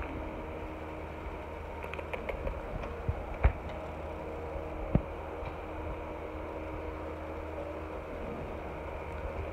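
Steady low machine hum, with a few sharp knocks, the loudest about three and a half and five seconds in.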